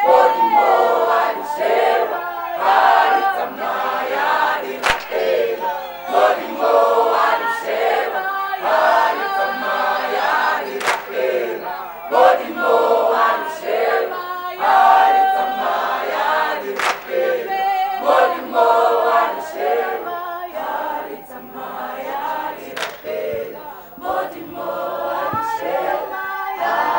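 Church worship team of men and women singing together as a choir.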